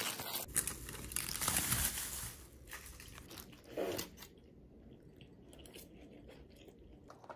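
Aluminium foil crinkling and rustling for the first two seconds or so as it is peeled open from around wrapped food, then quieter: a fork picking at the food, with a short sound about four seconds in, and faint chewing.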